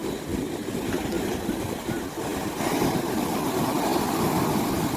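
Seaside ambience: a steady rushing of sea and wind, growing louder and brighter about halfway through.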